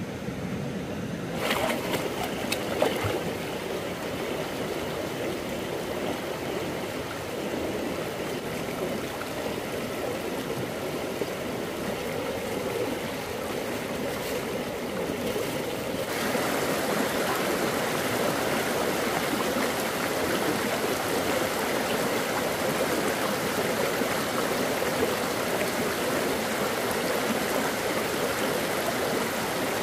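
Flowing water rushing steadily, with a few sharp knocks about two seconds in; the rush grows louder a little past halfway.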